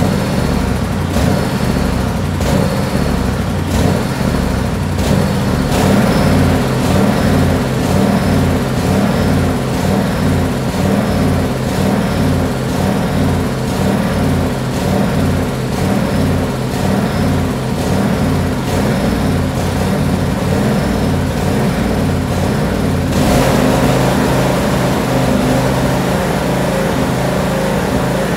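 Tractor engine running steadily, with an even low pulsing; its note changes about six seconds in and again about 23 seconds in.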